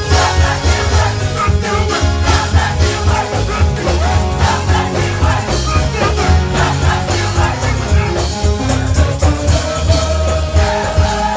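Choir singing gospel music with a live band: a heavy steady bass and a regular drum beat under the voices.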